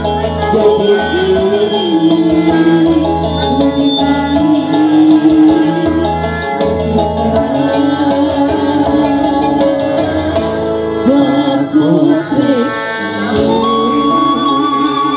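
Sundanese pop song performed live, with women singing over an instrumental backing with a steady beat.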